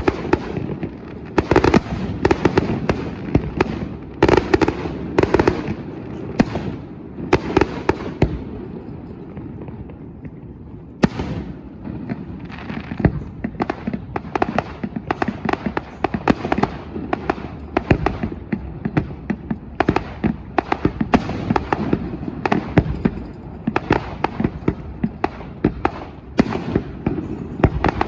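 Aerial fireworks shells bursting: large bangs about once a second, a short lull, then from about eleven seconds in a dense, rapid volley of sharp cracks and bangs.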